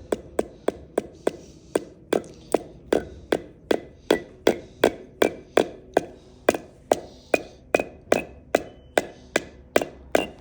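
A small child hammering a nail into wood: a steady run of hammer blows, about three a second, with the nail ringing faintly on some strokes.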